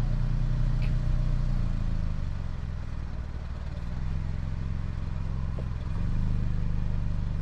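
Motor vehicle engine running steadily. Its pitch drops about two seconds in and picks up again about six seconds in, as the vehicle slows and then moves off.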